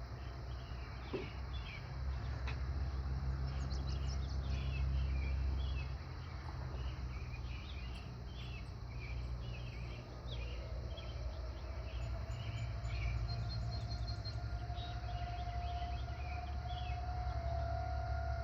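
A tornado warning siren sounding for its monthly test winds up faintly about ten seconds in, rising to a steady tone by about fifteen seconds. Birds chirp throughout over a low rumble.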